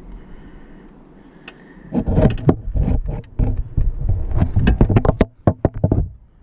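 Handling noise as a camera is worked out from under roof tiles: a quiet low rumble, then from about two seconds in a rapid run of knocks and scrapes against the tiles.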